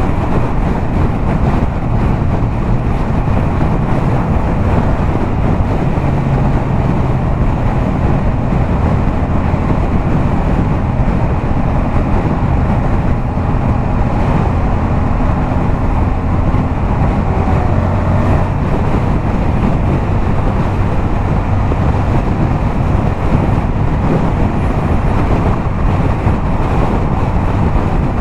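Yamaha MT-07's 689 cc parallel-twin engine, breathing through a LeoVince aftermarket exhaust, running at a steady highway cruise, with wind rushing over the microphone. The engine note stays fairly even, shifting slightly in pitch a few times.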